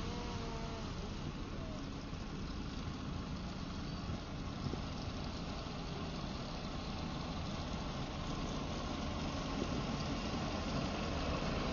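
Steady low rumble of a motor vehicle's engine running.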